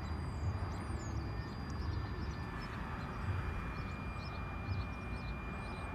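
Steady low background rumble with faint chirping from birds and a thin, steady high-pitched tone; no engine cranking or running.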